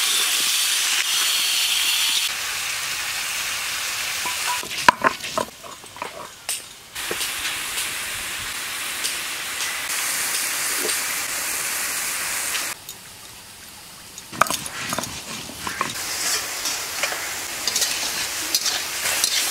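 Food sizzling in hot oil in a pan, stirred with a spatula that scrapes and clicks against the pan now and then. The sizzle drops and comes back abruptly a few times.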